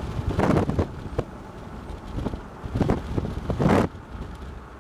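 Wind buffeting the microphone in three strong gusts over a steady low rumble.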